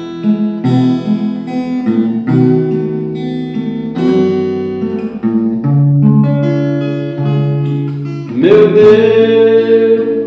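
Steel-string acoustic guitar playing a slow instrumental intro, a series of ringing chords picked one after another. About eight seconds in a man's voice comes in over it, gliding up into a long held sung note.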